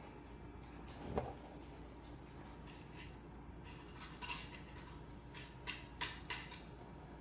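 Faint scattered plastic clicks and taps from a small label printer being handled, with a soft knock about a second in and a cluster of clicks in the second half.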